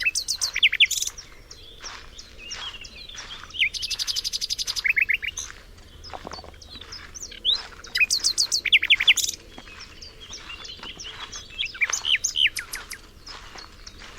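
Songbirds singing and chirping, several calls overlapping: quick high whistled notes and fast rattling trills that come in bursts every few seconds.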